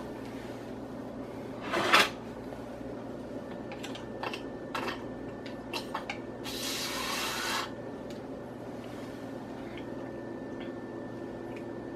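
Handling of a meat-injector syringe while marinating a turkey: a sharp knock about two seconds in, a few light clicks, then about a second of hissing, sucking noise as the injector draws marinade up from a bowl. A steady low hum lies under it all.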